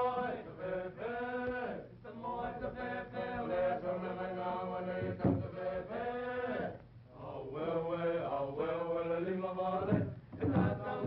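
Voices chanting in long held phrases, pausing briefly between them, as title music on an old cartoon soundtrack.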